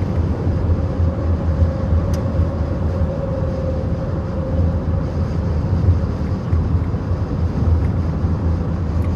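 Steady road and engine drone of a car being driven, heard from inside the cabin, with a single click about two seconds in.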